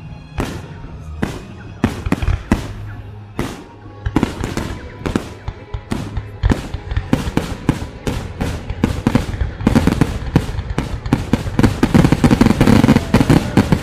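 Aerial fireworks bursting in a rapid string of sharp bangs and crackles, coming thicker and louder from about ten seconds in, with music playing underneath.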